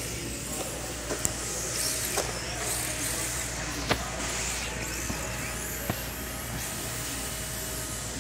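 1/10-scale RC drift cars' electric motors whining as they drift around the track, their pitch sliding up and down with the throttle. A few sharp clicks stand out, the loudest about four seconds in.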